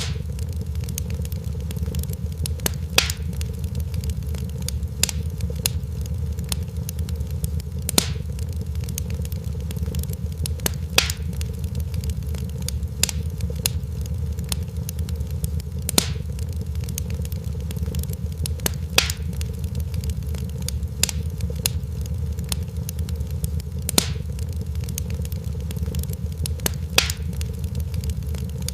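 Wood fire crackling, with sharp pops every couple of seconds over a steady low rumble.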